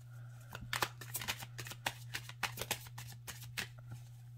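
Tarot cards being shuffled and handled: irregular light flicks and taps of the card stock in small clusters, over a steady low hum.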